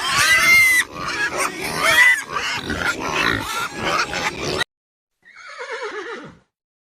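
Pigs squealing and grunting together, many overlapping squeals, cut off abruptly about four and a half seconds in. About half a second later a horse whinnies once, its pitch falling.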